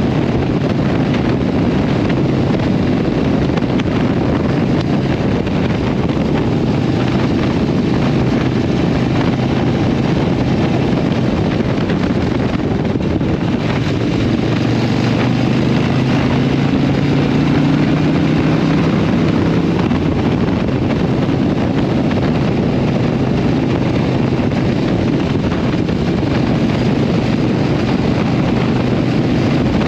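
Harley-Davidson Iron 883 Sportster's air-cooled V-twin running through a Vance & Hines exhaust while riding at cruising speed, with wind rush on the microphone. About halfway through the engine note climbs steadily as the bike accelerates again.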